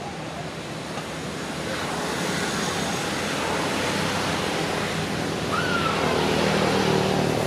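Steady rushing background noise that slowly grows louder, with one short call about five and a half seconds in that rises and then falls.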